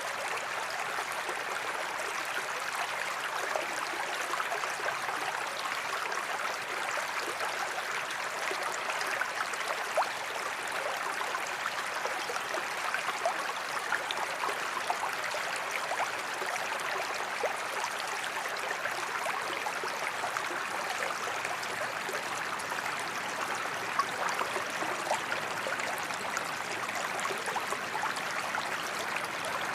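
Forest creek flowing, a steady babble of running water with a few brief louder spatters.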